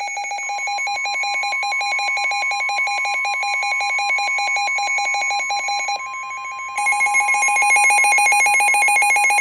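NOAA Weather Radio warning alarm: a steady alert tone just above 1 kHz under a fast-pulsing electronic alarm beep. The beep dips briefly about six seconds in, then comes back louder and brighter.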